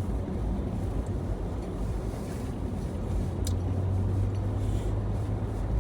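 Steady low rumble of a vehicle driving, heard from inside the cabin, with a brief sharp click about three and a half seconds in.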